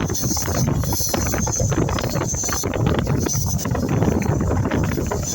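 Passenger train running: a steady low rumble with constant rattling and clicking, and wind buffeting the microphone.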